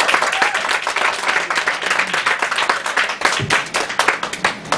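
Audience applauding, a dense patter of hand claps that thins out right at the end.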